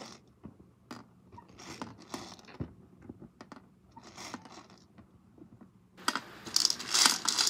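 Light plastic clicks and soft scraping from handling a toy bingo cage and plastic pegboard. From about six seconds in, a louder rustling as a sleeve brushes close to the microphone.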